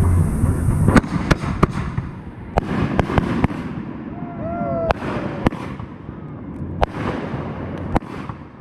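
Consumer firework cake going off close by: sharp bangs and cracks at irregular intervals as shots fire from the tubes and burst overhead, starting about a second in after a steady low rumble.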